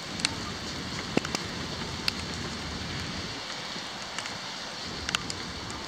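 Steady rain hiss with a few sharp taps of drops striking something close, scattered through it.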